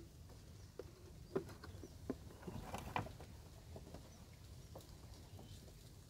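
Scattered light clicks, knocks and rattles of a folding wire-mesh crab trap being handled, with a brief busier cluster about halfway through. Faint short bird chirps sound now and then.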